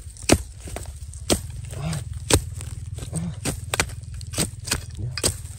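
Metal-bladed digging spade chopping into dry soil and roots beside a wild yam tuber: a series of sharp strikes, about one a second at first, then quicker toward the end.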